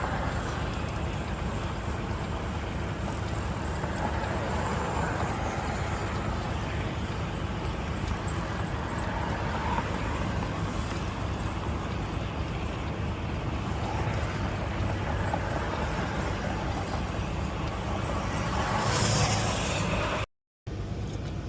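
Semi-truck's diesel engine and tyre and road noise while driving slowly, a steady rumble with a hiss over it. The sound drops out briefly near the end.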